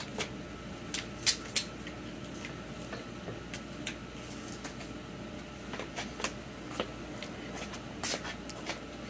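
Steady low hum with a few scattered small clicks and taps, the two sharpest about a second and a half in.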